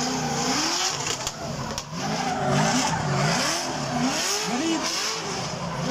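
Drift car's engine revving up and down over and over, its pitch rising and falling in quick arcs as the throttle is worked through a slide, over the hiss and screech of tyres spinning and sliding sideways.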